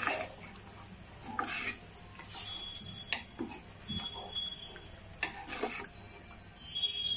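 A spoon stirring chunks of taro root in water in a metal pot, with several irregular scrapes against the pot.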